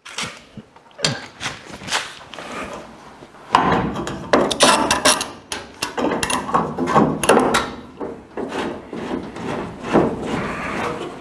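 Thin 1 mm sheet steel being bent by hand around a truck cab corner, rubbing and scraping against the cab, with scattered clicks. From about three and a half seconds in the scraping and clicking grows busier as a clamp with a wooden screw handle is fitted and screwed tight on the panel edge.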